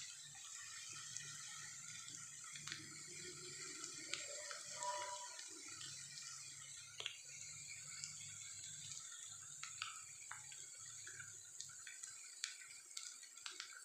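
Quiet, steady sizzling and crackling of an onion-tomato masala frying in oil in an aluminium kadai. A few sharper ticks come near the end, where an egg is being cracked over the pan.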